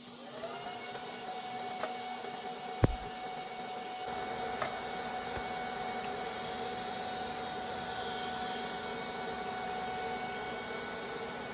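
TIG welding arc on a fuel pickup tube and flange: a steady buzzing tone that glides up in pitch as the arc comes up, holds for about ten seconds, then stops near the end. A single sharp knock sounds about three seconds in.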